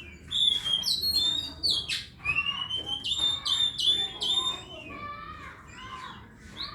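Oriental magpie-robin (kacer) singing: a rapid, varied string of clear whistled notes, upward and downward glides and chirps, loudest over the first four seconds or so, then softer.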